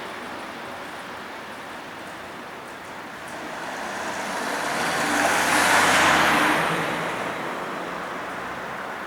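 A road vehicle, most likely a car, drives past close by over steady background traffic noise. It builds from about three and a half seconds in, is loudest around six seconds, and fades away over the next second or two.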